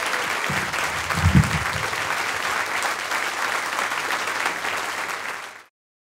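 Audience applauding, fading out and cutting off near the end.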